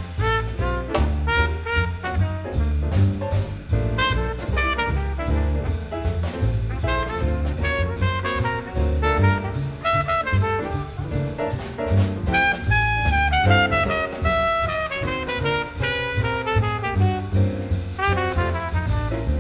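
Jazz big band playing, a trumpet soloing in fast runs over bass, drums and congas, with saxophones and trombones. Quick runs fall in pitch about twelve seconds in and again near the end.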